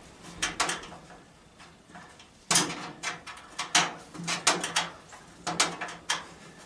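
A hand wrench working a bolt on a furnace's sheet-metal cabinet: an irregular series of sharp metallic clicks and clinks, a few tenths of a second apart, with a quieter gap near the start.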